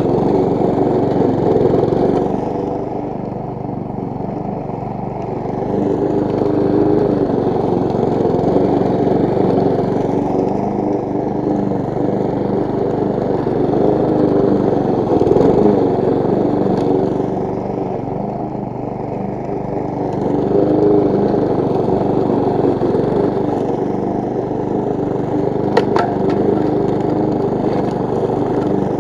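Briggs & Stratton single-cylinder four-stroke engine of a petrol push mower running at a steady speed while cutting grass, its loudness swelling and easing every few seconds. A sharp click near the end.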